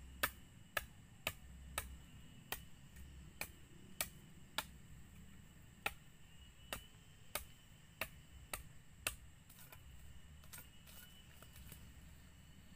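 Sharp knocks of a blade chopping at a wooden pole, about two strokes a second in an uneven rhythm, stopping about nine seconds in.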